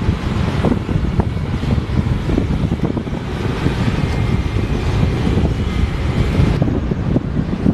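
Wind buffeting the microphone: a loud, uneven low rumble with a hiss above it.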